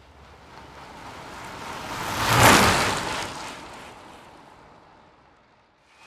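Bicycle passing by: a rush of tyre and wind noise that swells to a peak about two and a half seconds in, then fades away.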